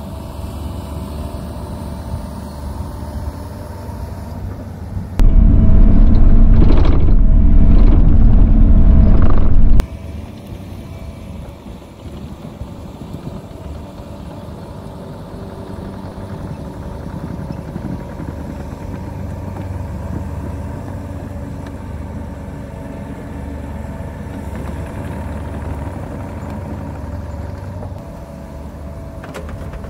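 Bobcat E42 mini excavator's diesel engine running steadily under load while it grades and pushes sand. About five seconds in, a much louder low rumble cuts in abruptly, lasts about four and a half seconds, then cuts out just as suddenly.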